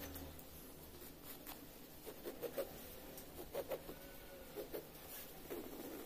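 Pencil drawing on paper: faint scratching, with short strokes coming in quick clusters from about two seconds in.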